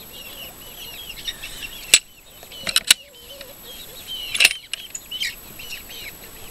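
Chickens chirping with short, repeated high calls. A few sharp knocks and clacks come about two, three and four and a half seconds in as the wooden nest box's hinged lid and latch are handled and shut.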